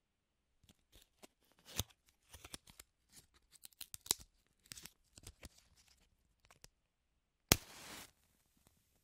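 Small clicks and scrapes of matches being handled, then, about seven and a half seconds in, a match is struck: a sharp scrape that flares into a short hiss of about half a second as it ignites, followed by a faint steady hiss.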